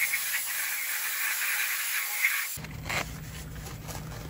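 Flood coolant spraying from the CNC mill's nozzles onto the aluminum part: a steady hiss that cuts off sharply about two and a half seconds in. A faint low hum follows, with the rustle of a paper towel wiping the machined part.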